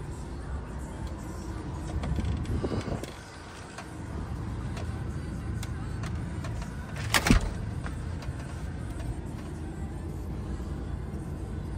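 DAF XF480 truck's PACCAR MX diesel engine idling with a steady low rumble, heard from inside the cab. A sharp knock about seven seconds in is the loudest sound.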